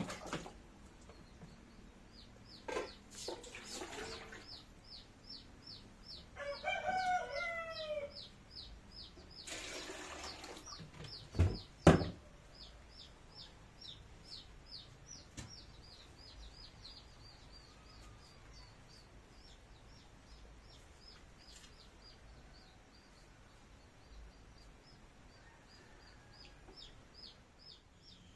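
A rooster crows once about seven seconds in, while a small bird keeps up a fast series of short, high, falling chirps, about three a second. A few knocks, a brief hiss, and a loud double thump about twelve seconds in.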